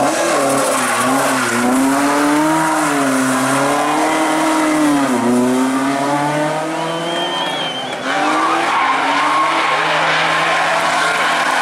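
Rally car engine revving hard through a bend, its pitch climbing and falling with throttle lifts and gear changes. About two-thirds of the way through the sound changes abruptly to a second rally car's engine running at high revs.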